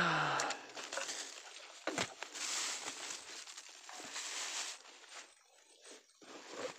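Rustling of grass and leafy undergrowth as someone moves through it on foot, with a plastic bag crinkling. It begins with a sudden loud bump, and there is a sharp click about two seconds in.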